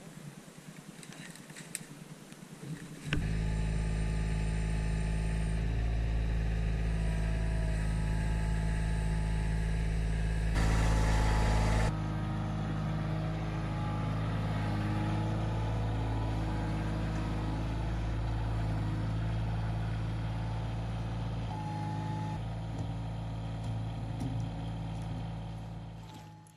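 Kioti compact tractor's diesel engine running steadily, coming in loudly about three seconds in and fading out at the end.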